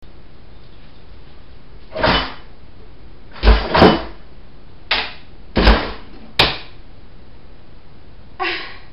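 A kitchen drawer being worked and its contents handled: about six short, loud knocks and rattles in under five seconds, some with sharp clicks. A short vocal sound comes near the end.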